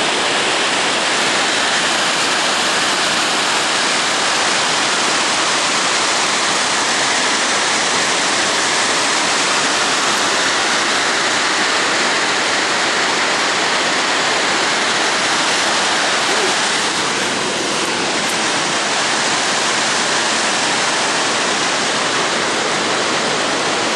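Mountain waterfall rushing: a loud, steady wash of falling-water noise.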